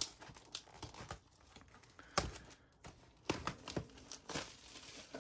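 Cardboard box and packaging being opened and handled by hand: scattered taps, clicks and light rustling, with a sharper knock about two seconds in and a quick run of taps a little later.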